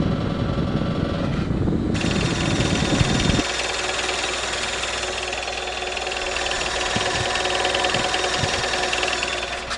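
Car engine idling steadily after an oil change. It sounds muffled at first, then about two seconds in it comes through clearer, with a fine, rapid ticking from the valvetrain under the open hood.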